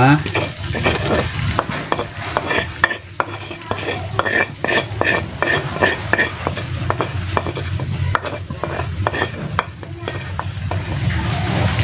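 Eel pieces frying in oil in a wok, sizzling, while a metal spatula scrapes and knocks against the pan as ground spice paste is scraped in and stirred through. There are many sharp clicks and scrapes, with a quick run of regular knocks about four seconds in.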